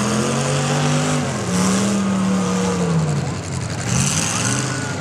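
Demolition derby car's engine revving under load. Its pitch climbs at the start, holds, and drops away about three seconds in, then picks up again near the end.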